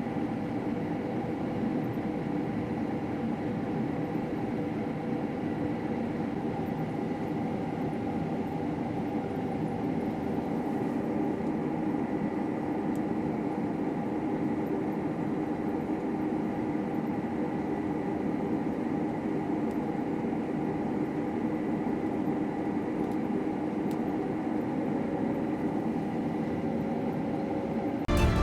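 Combine harvester running steadily while harvesting wheat, an even machine hum with a few steady tones and no change in pitch.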